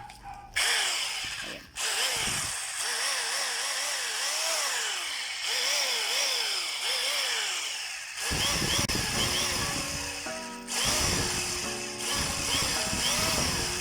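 Titanium Power electric rotary hammer running in plain rotary mode, drilling action only with no hammering. It starts about half a second in, runs with a high whirring motor sound, and dips briefly twice as the trigger is eased. Background music plays underneath.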